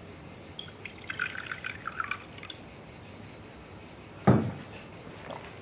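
Metal stovetop moka coffee pot being handled: about a second of light, rapid clinking as its parts are worked, then one loud thump about four seconds in as the pot is set down on the wooden table.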